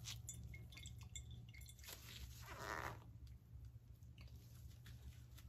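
Faint, soft wet squishing of grated cassava being wrung in a cheesecloth by gloved hands, pressing its liquid out, with a few small clicks. A low steady hum lies underneath.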